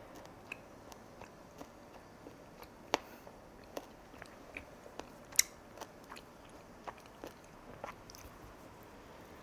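Close-miked chewing and mouth sounds of a person eating, broken by about a dozen short, sharp clicks and crunches, the loudest about three seconds and five seconds in.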